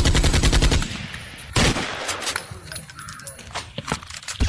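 Automatic gunfire from the PUBG video game: a rapid burst of shots that stops a little under a second in, then one loud single shot about a second and a half in, followed by a few scattered lighter shots.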